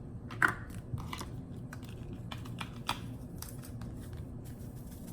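Spice container and measuring spoon being handled while seasoning is measured out: a scatter of light clicks and taps over a quiet room background.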